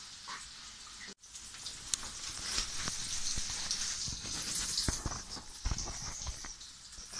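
Sausage frying in oil in a pan: a steady sizzle with crackling pops. It cuts out sharply about a second in and comes back louder.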